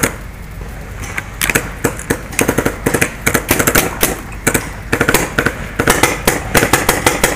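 Paintball markers firing in rapid bursts of sharp cracks, several shots a second, with short pauses between bursts.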